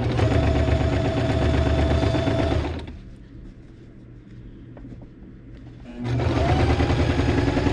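Electric domestic sewing machine stitching down quilt binding in two runs. It stops after about two and a half seconds, then starts again about six seconds in, its motor whine rising as it comes up to speed.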